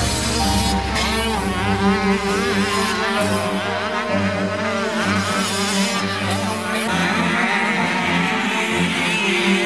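Several small motocross bikes racing past, their engines buzzing and revving up and down as the riders work the throttle.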